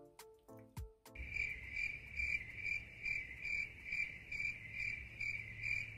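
Background music with a thumping beat cuts off about a second in and gives way to a cricket-chirping sound effect: a steady high chirp pulsing about twice a second over a low hum, the edited-in 'crickets' gag for an awkward silence.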